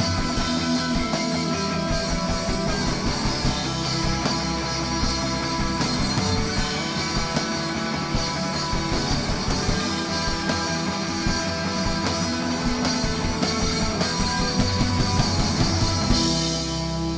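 Live rock band playing a song, with electric guitars and bass over drums.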